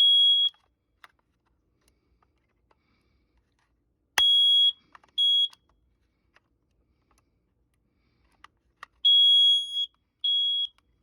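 Carbon monoxide detector alarm giving high-pitched beeps as it powers up on fresh AA batteries: one at the start, two just after four seconds, two longer ones near the end. Light plastic clicks from handling the unit fall between them. The beeping is the sign that the detector is working properly.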